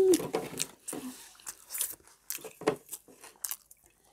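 Close-miked chewing of a soft burger: irregular wet mouth clicks and small crunches, with a brief hummed vocal sound at the start.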